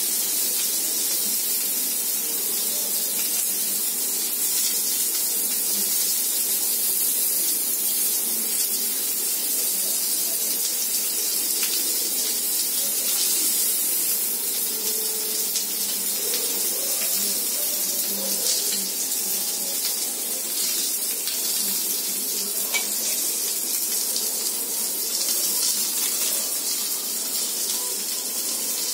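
Paneer and vegetable skewers sizzling on a hot flat pan over a gas burner: a steady hiss, with a few light clicks as the skewers are turned.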